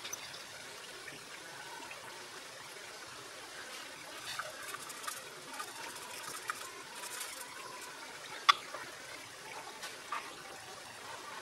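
Kabab gravy simmering in a pan, bubbling and popping softly, with one sharp click about three-quarters of the way through.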